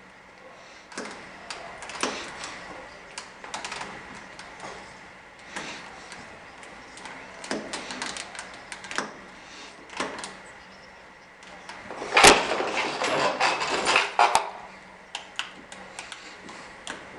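Metal clicks, knocks and clatter of a locksmith handling lock parts and hand tools, with a louder stretch of rattling about twelve seconds in.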